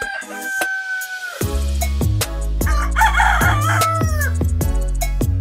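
A rooster crows, a long held call that ends about a second in. Then a music track with a heavy bass and drum beat kicks in, and a second rooster crow sounds over it around the middle, falling away at its end.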